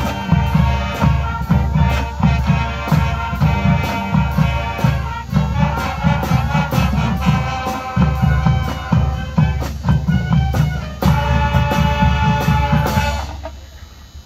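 High school marching band playing: brass and woodwinds in full chords over drumline and front-ensemble percussion, with steady drum hits. The music drops away sharply about a second before the end.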